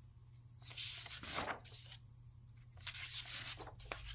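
Loose printed workbook pages being turned over by hand on a table: two paper rustles, with a light tap of paper near the end.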